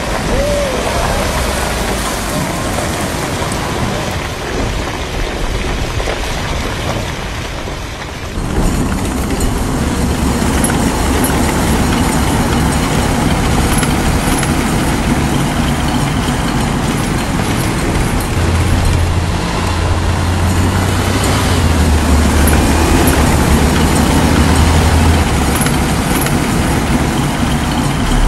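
Heavy vehicle engines running in a dense, continuous noise, with the sound changing abruptly about eight seconds in and a steadier low drone later on.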